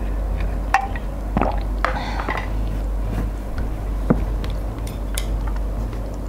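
Eating sounds at a table: a handful of light clicks and knocks from chopsticks and a plastic cup against a ceramic bowl and tabletop, over a steady low hum.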